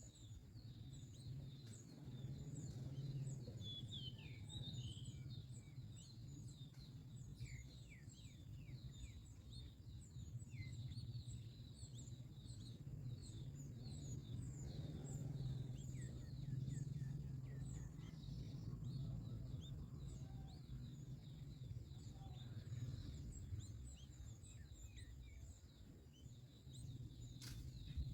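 Birds chirping outdoors: many quick, short, high notes over a steady low rumble of background noise.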